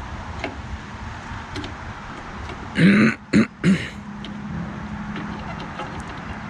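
A man coughs three times in quick succession, harsh and loud, about three seconds in, over a steady low hum.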